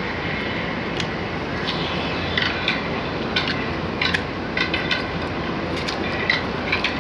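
Wet chewing, lip smacks and bites of someone eating roast duck by hand: irregular short clicks and smacks, thicker in the second half, over a steady background rush of noise.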